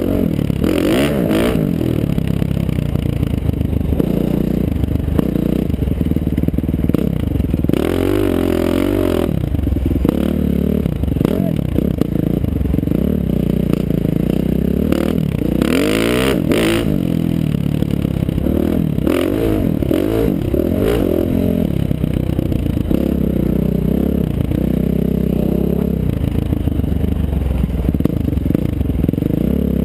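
2012 KTM 450 SX-F's single-cylinder four-stroke engine, heard from a helmet camera, revving up and down as the bike accelerates, shifts and slows around a motocross track. A few short rushes of noise break over it, near the start, about eight seconds in and about sixteen seconds in.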